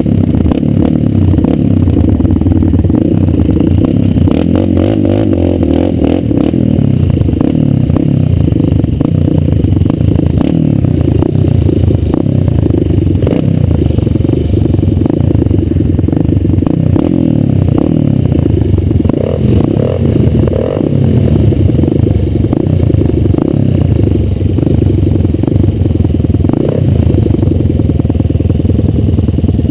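Kawasaki KLX150's single-cylinder four-stroke engine running under load, rising and falling with the throttle. Frequent rattles and knocks come from the bike over rough dirt trail.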